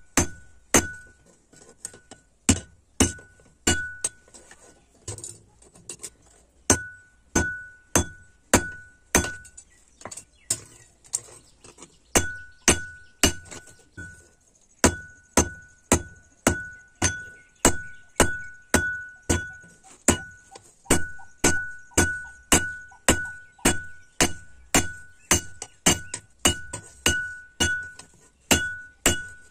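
Hand hammer forging a red-hot steel knife blade on a railway-rail anvil: steady blows at about one and a half a second, each with a short high ring. The blows turn softer about a third of the way in and stop briefly before picking up again.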